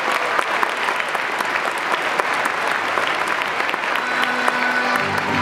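Audience applauding with dense, steady clapping. Near the end, music starts under the applause.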